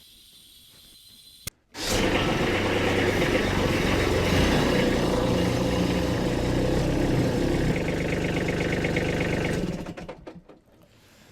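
Kubota B2601 compact tractor's three-cylinder diesel engine running steadily. It comes in abruptly about two seconds in, changes pitch a little near the end, and dies away shortly before the end.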